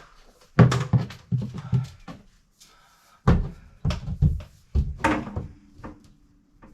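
A series of hard knocks and clunks, about seven, spaced unevenly, like parts or tools being handled and set down. A faint steady hum comes in about five seconds in.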